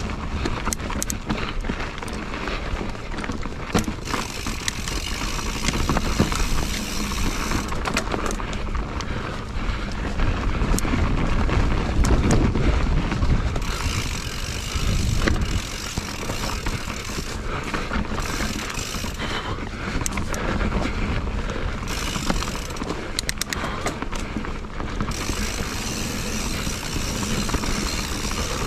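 Mountain bike being ridden over a rough trail: steady tyre and riding noise with frequent clicks, knocks and rattles from the bike. A louder low rumble runs from about ten to fifteen seconds in.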